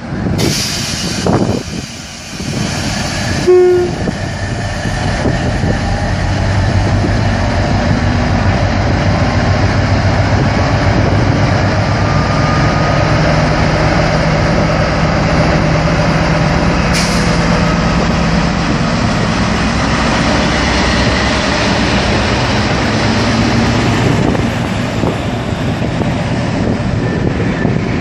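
Class 60 diesel locomotive sounding a short horn blast about four seconds in, then its Mirrlees eight-cylinder diesel engine powering up to pull away with its train. The result is a steady loud engine drone that rises in pitch and then holds.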